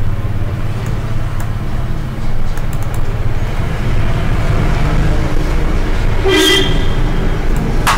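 Steady low rumble of background road traffic, with a short horn toot about six and a half seconds in and a sharp click near the end.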